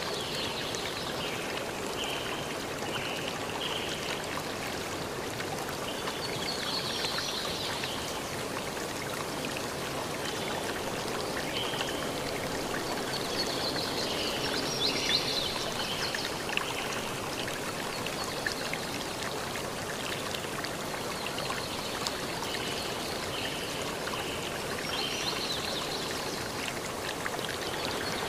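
Steady rush of flowing water, like a stream, with brighter, splashier patches coming and going every few seconds.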